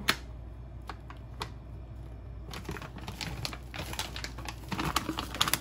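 Kitchen handling noise: a few sharp clicks, then from about halfway a dense run of small clicks and crinkles as a plastic container or its packaging is worked open.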